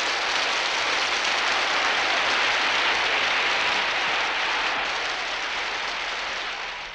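A crowd applauding, a dense, even clapping that eases off and fades away at the end.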